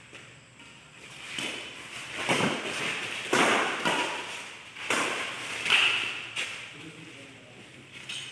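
Badminton rally: rackets striking a shuttlecock about five times, roughly a second apart, each crack sharp and echoing.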